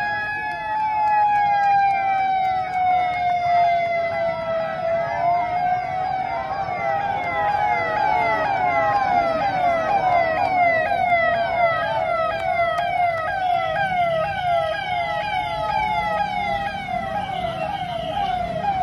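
Several convoy vehicle sirens sounding together: one slow wail rising and falling in pitch, joined a few seconds in by a faster siren that sweeps downward over and over, a few times a second.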